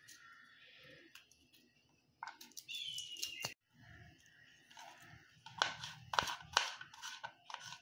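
Kitchen knife chopping garlic on a cutting board: a few scattered taps, then a quicker run of sharp chops in the last couple of seconds.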